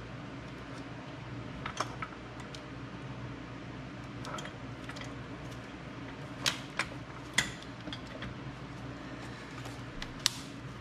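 Scattered hard clicks and taps as a jet ski jet pump part is fitted over its four mounting bolts by hand, the sharpest a few in the middle and one near the end, over a steady low hum.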